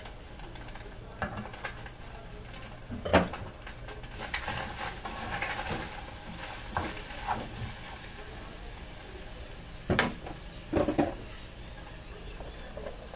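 A garlic, tomato and onion sauce frying in a small pan, with a soft sizzle that rises a few seconds in as ingredients go in. Utensils and containers knock and clink against the pan now and then, sharpest about three seconds in and again near ten seconds.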